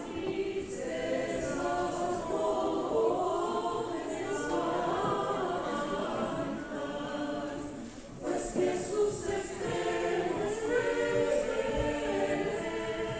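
Choir singing a cappella in several-part harmony, with a brief break between phrases about eight seconds in.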